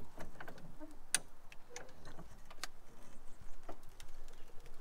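High-lift farm jack clicking as its handle is pumped: an irregular scatter of short, sharp metallic ticks as the climbing pins catch, while the jack pushes a crushed pickup cab roof back up.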